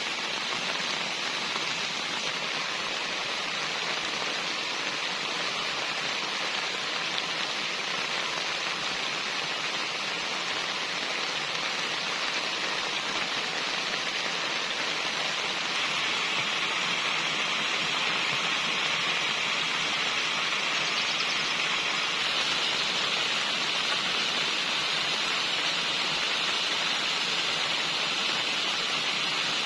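Steady rain falling, as an even hiss of drops that gets a little louder about halfway through.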